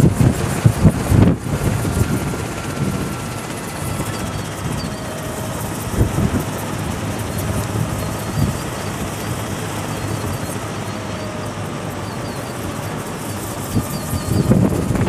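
A small three-bladed wind turbine spinning in the wind, heard as a steady rush with a faint whine, under wind buffeting the microphone. The buffeting is heavy at first, eases about a second and a half in, and picks up again near the end.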